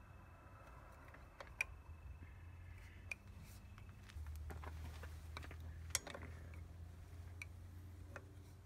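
Hand tools being handled: sockets and a torque wrench giving a few sharp metal clicks and clinks several seconds apart, the loudest about one and a half seconds and six seconds in, over a faint low steady hum.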